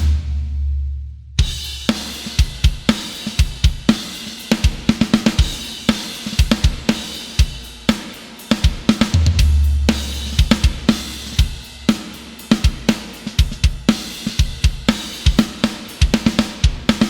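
Sampled acoustic drum kit from EZdrummer 3's Death Metal EZX library playing a metal pattern of fast kick and snare hits under hi-hat and cymbals. The playing pauses briefly about a second in, with a low sustained tone holding through the gap.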